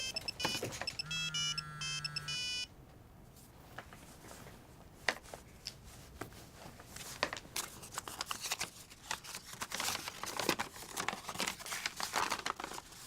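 Electronic alarm tone with a low buzz, sounding in repeated pulses and stopping about two and a half seconds in. It is followed by scattered soft clicks and rustling of handling and movement.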